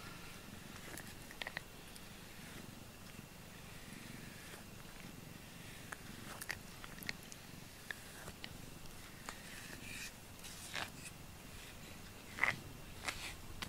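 A cat purring steadily while it rubs its face against and bites a rubber grooming brush, with scattered small clicks and scrapes.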